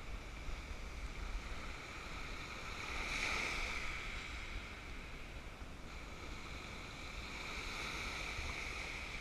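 Small sea waves washing in and breaking over the rocky shoreline, swelling twice, with a low rumble of wind on the microphone.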